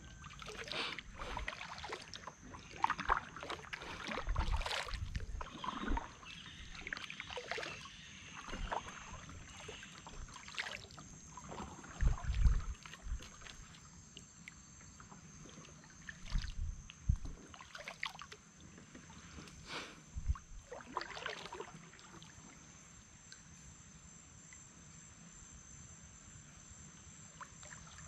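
Kayak paddling: irregular paddle splashes in the water with a few dull knocks against the hull, dying away after about twenty seconds. A steady high insect drone runs underneath.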